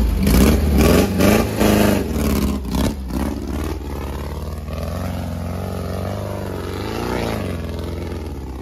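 Off-road buggy engine revving under load as the buggy climbs a steep dirt hill. Its pitch rises and falls several times, with sharp clattering knocks in the first couple of seconds and a long rev that peaks about seven seconds in, over a steady low rumble.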